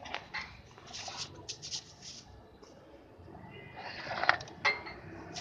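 Metal clinks and knocks of a car's starter motor being fitted against the engine's bellhousing: a run of light sharp clicks, then two louder knocks about four seconds in.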